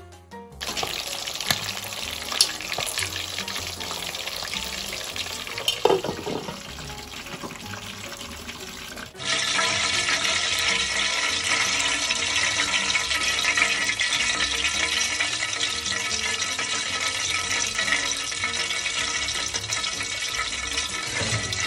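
Hot oil sizzling and bubbling around a whole chicken deep-frying in a wire basket. The sizzle jumps suddenly louder about nine seconds in.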